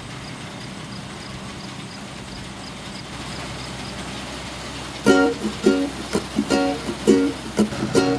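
Steady low running hum of a Massey-Ferguson Super 35 combine's engine. About five seconds in, plucked-string background music starts and becomes the loudest sound, with the hum continuing beneath it.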